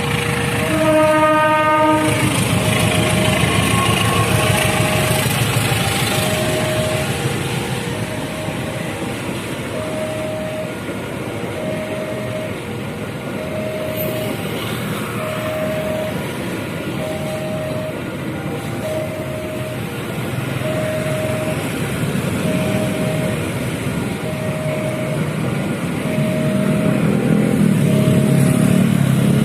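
Railway level-crossing warning alarm beeping about once a second as a train passes: a horn blast about a second in, then the steady rumble and clatter of the train going by, louder near the end.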